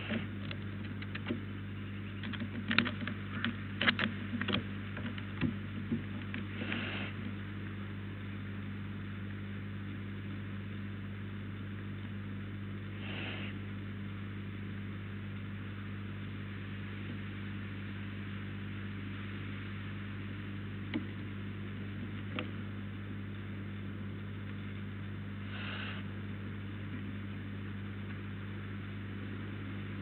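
Steady electrical hum from the nest-box camera's microphone, with a cluster of sharp clicks and knocks in the first seven seconds as a barn owl shifts on the wooden entrance platform. A few short, soft hisses come at long intervals.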